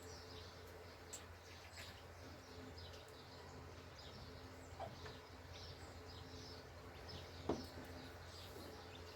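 Small birds chirping faintly and repeatedly over a steady low hum, with one sharp knock about seven and a half seconds in.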